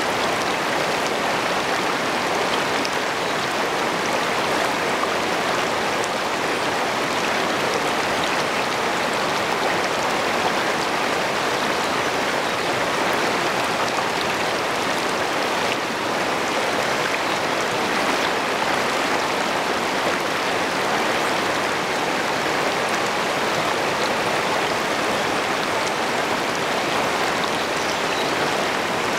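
Shallow river rapids: water rushing and splashing over stones close to the microphone, a steady, unbroken rush.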